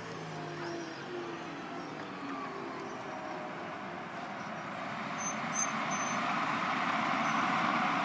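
Diesel engine of a Piranha 5 8x8 infantry fighting vehicle running as it drives over grass. The sound grows louder and rougher from about five seconds in.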